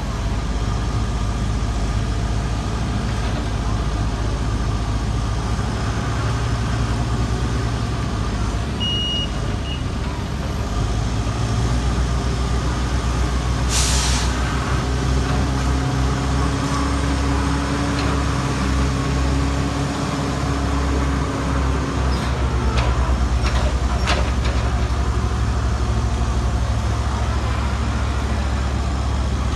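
Heavy diesel construction machinery running steadily with a deep rumble. About fourteen seconds in comes a short air-brake hiss, and there is a brief beep near nine seconds and a few sharp knocks a little after twenty seconds.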